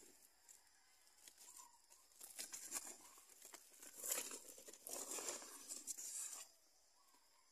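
Faint rustling and crinkling in several bursts, starting about two seconds in and stopping about six and a half seconds in.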